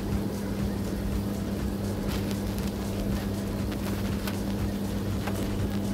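Chicken pieces simmering in a bubbling spiced yogurt masala in a metal pan, with a few faint pops over a steady low hum.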